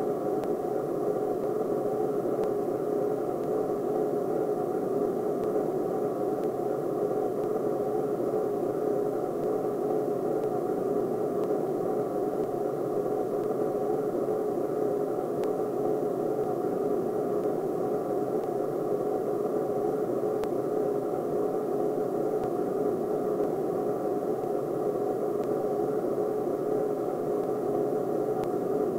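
Steady hiss with a faint low hum, the noise floor of an old 16 mm film soundtrack, even throughout with no bangs or changes.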